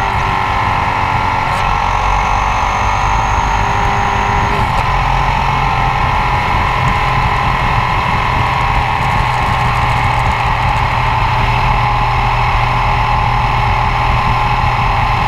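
Ducati ST4s L-twin engine and exhaust running at a steady cruise, mixed with wind and tyre rush on the road. The engine note drifts slightly in the first few seconds, then holds steady.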